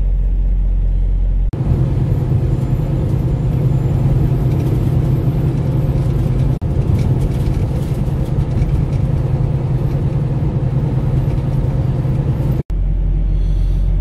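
Semi truck's diesel engine heard from inside the cab: a steady low idle, then from about a second and a half in a louder engine and road rumble while driving, which drops back to the low steady hum near the end. The sound breaks off suddenly twice.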